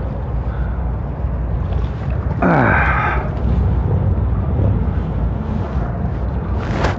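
Wind buffeting the microphone as a steady low rumble, with a short whine that falls steeply in pitch about two and a half seconds in.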